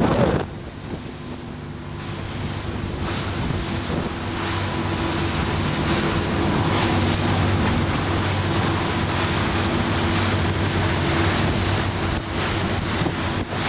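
Powerboat engines running at speed with a steady low hum, growing louder over the first few seconds. Wind buffets the microphone and water rushes from the boats' wakes.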